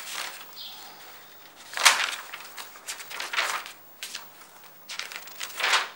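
Pages of a large paper ledger being turned and handled: several dry rustles, the loudest about two seconds in and another just before the end.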